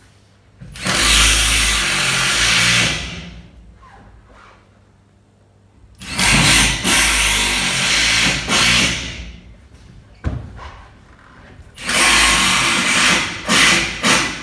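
Cordless drill driving screws down through flooring sheets, in three runs of about three seconds each, the last one stopping and starting a couple of times near the end.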